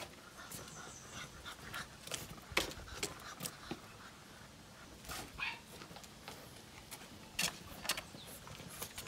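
French bulldog puppy panting as it walks on a leash, with irregular taps and clicks of shoes and paws on stone paving.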